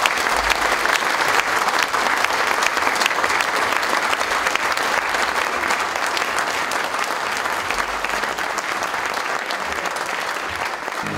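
Audience applauding: dense, steady clapping from many hands, easing off a little near the end.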